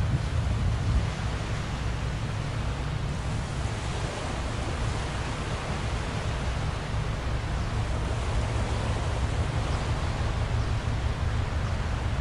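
Wind buffeting the microphone: a steady, unpitched low rumble with a hiss above it.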